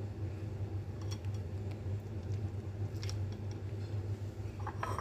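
A steady low hum, with a few faint light taps of chopsticks against a glass bowl of noodles, a small cluster of them near the end.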